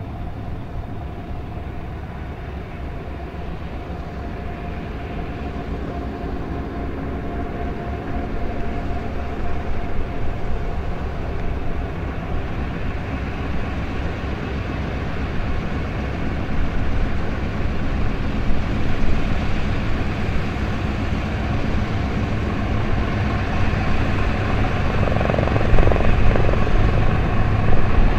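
Twin radial piston engines of a de Havilland Canada DHC-4 Caribou (Pratt & Whitney R-2000 Twin Wasps) running at low power as it taxis, a steady propeller drone that grows gradually louder as the aircraft comes closer.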